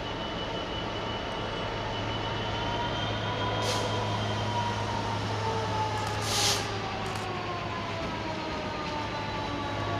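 Class 66 diesel-electric locomotive approaching with a freight train, its two-stroke V12 diesel engine running under load and growing gradually louder, with slowly sliding tones. A brief hiss about six seconds in.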